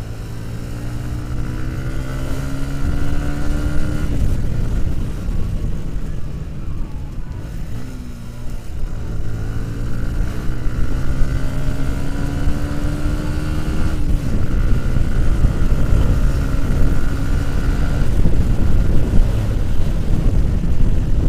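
Sport motorcycle engine accelerating hard, its pitch climbing and then dropping at an upshift about four seconds in. It eases off around eight seconds, climbs again and shifts up once more near fourteen seconds. Wind noise rushes over the microphone throughout.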